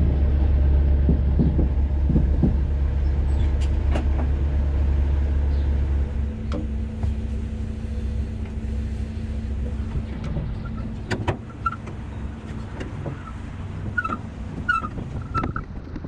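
Gooseneck trailer being hitched to a pickup: metal knocks and clanks as the coupler is cranked down onto the ball with the trailer's jack. A steady low rumble runs underneath and stops about six seconds in. Birds chirp near the end.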